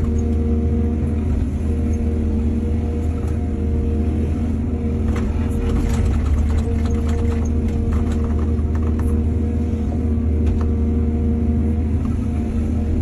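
Excavator's diesel engine running steadily with a deep rumble. From about five to ten seconds in, a run of clattering knocks sounds over it, typical of the bucket working soil and stones.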